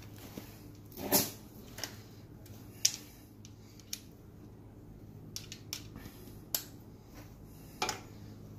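Scattered sharp clicks and knocks, about eight over several seconds with the loudest about a second in, over a low steady hum.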